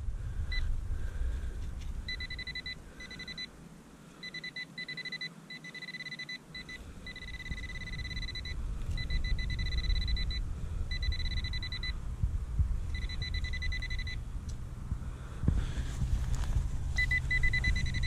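Handheld metal-detecting pinpointer sounding a steady high-pitched tone in on-off stretches of about half a second to two seconds as it is worked through the dig hole, signalling metal: more iron-melded cog fragments of an old clock mechanism. A low rumble runs underneath.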